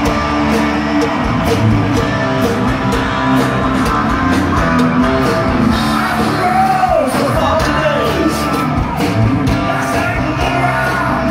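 Loud live rock band playing through the stage amplification: electric guitars, bass and drums, with singing. A sliding note falls in pitch about seven seconds in.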